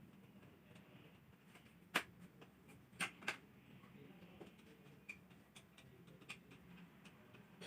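Near silence broken by a few sharp clicks: a loud one about two seconds in, two more close together about a second later, and fainter scattered ticks.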